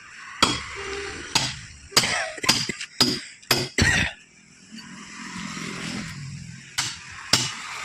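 Sharp, irregular knocks and clanks of tools striking while a tractor tyre is worked off its rim, about eight in quick succession in the first four seconds and two more near the end.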